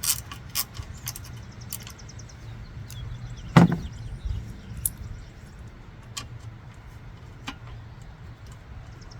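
Scattered clicks and clinks of hand tools and metal parts being handled, with one loud knock about three and a half seconds in, over a steady low hum.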